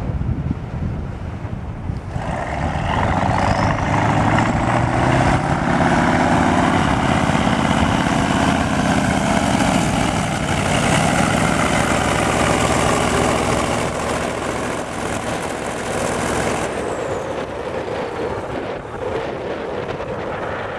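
Heavy eight-wheeled truck's diesel engine running loudly as it drives through sand, starting abruptly about two seconds in and dropping away near the end. Wind buffets the microphone before and after.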